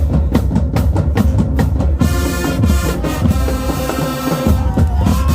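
School band playing: drums pound out a steady beat, and the wind and brass section comes in over them about two seconds in.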